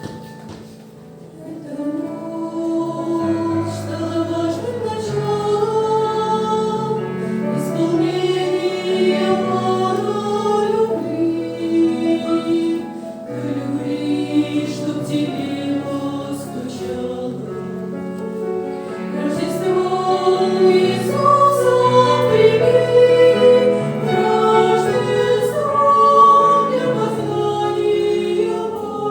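Church choir singing a Christmas hymn, the voices coming in fully about two seconds in.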